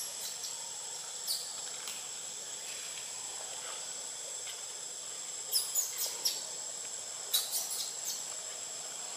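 Steady high-pitched drone of forest insects. Short, sharp high chirps come in two clusters, about five and a half and seven and a half seconds in.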